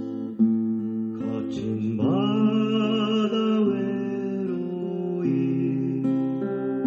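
Background music led by acoustic guitar, with a slow melody of long held notes.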